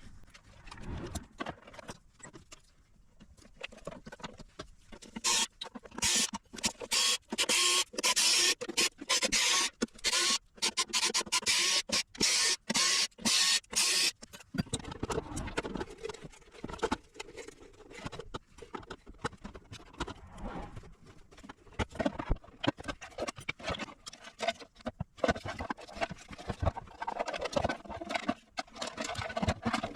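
Screws being backed out of the unit's case, with a small power screwdriver whirring in a run of short bursts through the middle, then lighter clicks and rattles of screws and the case being handled.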